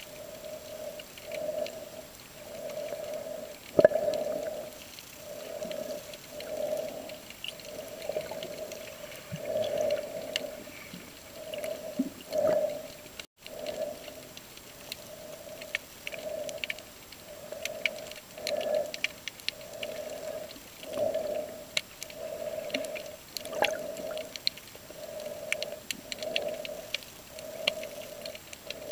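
Underwater sound: a low hum that pulses about once a second, with scattered crackling clicks above it.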